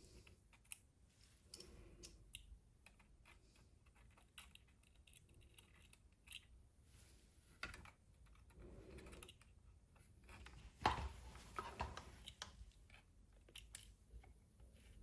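Faint, irregular small clicks and taps of a precision screwdriver and tiny screws against the plastic housing of a Meta Quest 3 headset, with a louder clatter about eleven seconds in.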